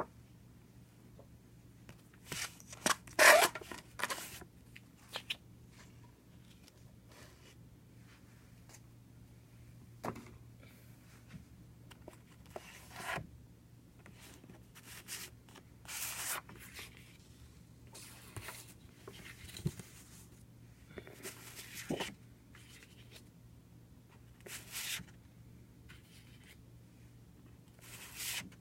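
Packaging of a boxed commemorative film edition being handled and opened: irregular rubs, scrapes and rustles, the loudest about three seconds in.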